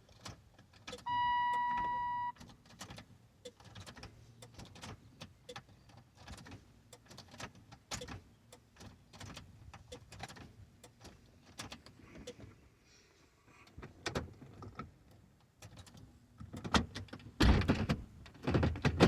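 A car's warning chime sounds once, a steady beep about a second long, followed by scattered light clicks. Near the end a loud low rumble starts up in short bursts, typical of the starter cranking an engine that is reluctant to start.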